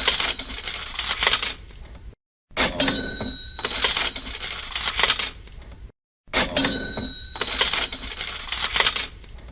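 Cash register sound effect looping: each cycle opens with a bell ding and goes on into a rattle of the drawer and coins, repeating about every four seconds with a short silent gap between repeats.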